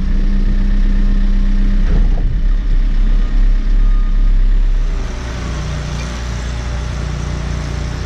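Diesel engine of a JCB telehandler running close by, a dense low hum; about five seconds in it drops to a lower, steadier level.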